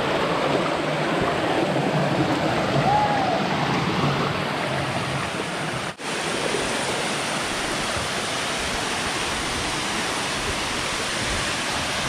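Steady rush of flowing water: a shallow stream running over rocks, and after a brief break about halfway through, the even rush of a small waterfall pouring into a pool.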